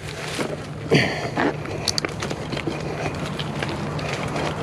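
An old bicycle being ridden, a steady running noise with scattered small clicks and rattles from its worn frame and loose saddle. About a second in there is a short falling vocal sound.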